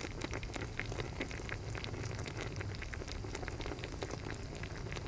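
Sauce bubbling and sizzling around a whole chicken simmering in a pot: a steady crackle of many small pops.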